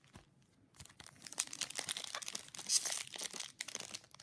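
Foil wrapper of a Yu-Gi-Oh booster pack crinkling and tearing as it is opened by hand, a dense run of crackles starting about a second in.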